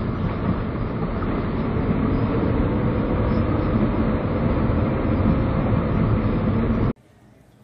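Toyota 86 on the move, heard from inside the cabin through a dashcam's microphone: a steady mix of the flat-four engine's hum and tyre noise. It cuts off suddenly near the end to quiet room tone.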